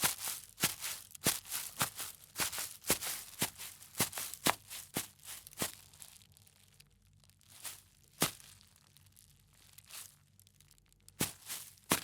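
Footsteps walking on grass, each step a short swishing crunch, about two a second. About halfway through the walking stops, leaving only a couple of single steps, then it resumes near the end.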